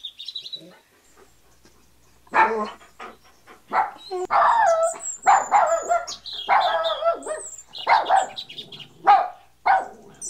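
Puppy barking and yipping: a quick run of short, high barks and yelps that starts about two seconds in and keeps going, some with a squeaky, whining edge.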